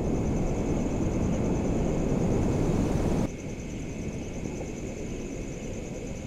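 Steady low rumbling ambience with a thin, high-pitched hum above it; it drops in loudness about three seconds in.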